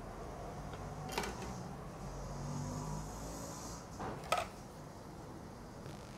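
Hands preparing pani puri: two short, sharp clicks, about a second in and again past four seconds, with faint handling rustle over a steady low hum.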